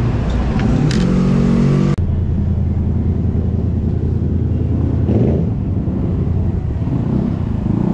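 Motorcycle engine idling steadily with a low, even hum, heard after a sudden change about two seconds in. Before that there is a different engine-like hum of street traffic.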